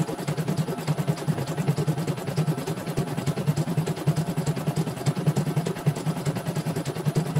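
CNY portable computerized embroidery machine stitching a design: the needle bar and hoop drive run with a rapid, even chatter of needle strokes.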